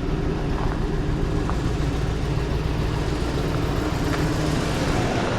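1999 Chevrolet Silverado pickup engine idling steadily after starting on a newly replaced starter.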